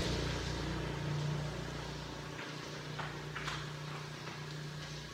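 A motor running with a steady low hum that slowly gets quieter, with a few faint clicks about halfway through.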